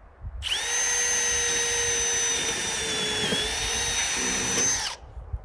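Power drill drilling a pre-drilled screw hole through a corrugated steel roofing panel. Its motor runs with a steady high whine for about four and a half seconds, dips briefly about three seconds in, then stops.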